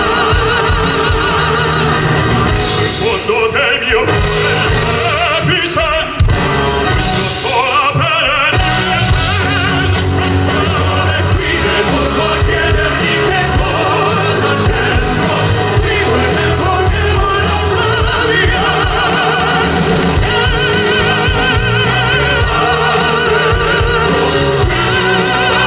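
Male crossover vocal group singing a pop-opera ballad live over full musical accompaniment, amplified through a PA, with long held notes sung with vibrato.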